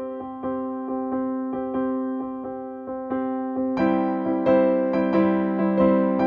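Background music: an electric piano playing a gentle, steady run of notes, about three a second, growing fuller with lower notes added about four seconds in.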